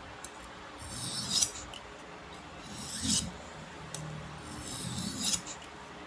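Knife edge drawn across a small Buck coarse-grit natural Arkansas pocket whetstone in three light stropping strokes, about two seconds apart, each a scraping rasp that swells toward its end, bringing back the keenness of an edge that was only slightly dulled.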